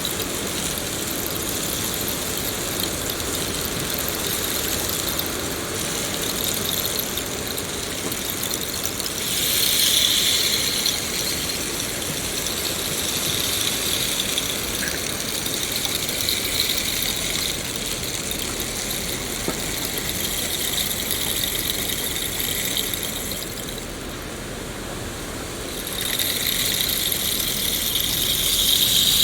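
Steady rain falling in a forest, a continuous even hiss. A higher-pitched hiss swells briefly about ten seconds in and again near the end.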